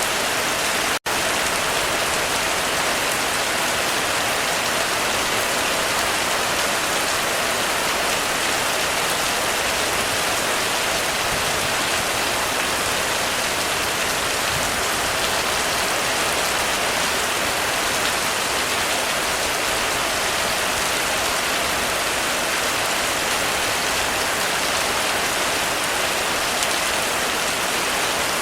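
Heavy rain falling steadily on a roof, with a dense, even hiss of drops and no thunder. The sound cuts out for an instant about a second in.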